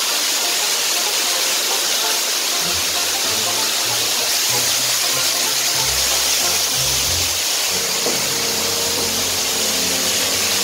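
Heavy rain falling onto a pond, a steady hiss. Background music with a bass line comes in about two and a half seconds in.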